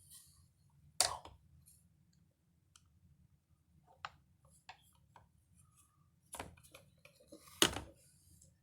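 Scattered clicks and knocks of parts being handled while a Hoover carpet washer's brush-drive housing is taken apart, with a sharp click about a second in and the loudest knock near the end.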